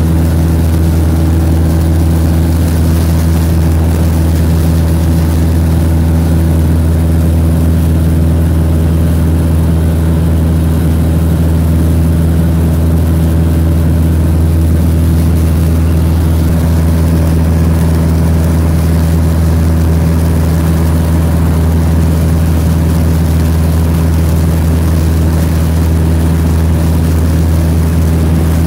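Steady drone of a high-wing light aircraft's engine and propeller heard from inside the cabin in cruise, a deep even hum that holds one pitch throughout.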